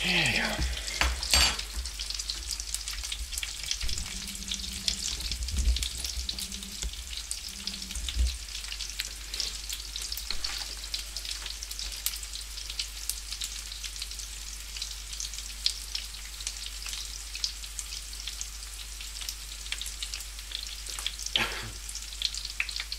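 Potato noodles and cornflake-coated sausages sizzling and crackling in hot oil in a frying pan, with a couple of louder clicks near the start.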